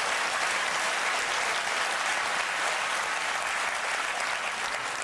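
Studio audience applauding steadily after a stand-up punchline, easing off slightly near the end.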